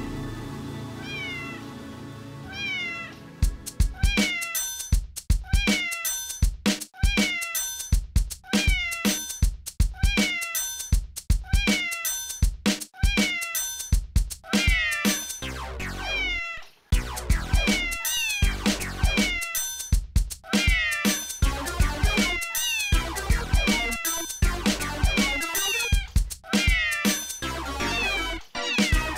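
Cat meows sampled and looped into an electronic music track. Over the first few seconds the meows sound over a sustained tone. A steady beat starts about three and a half seconds in, with the meows repeating in time with it, and more layers of meows pile up later on.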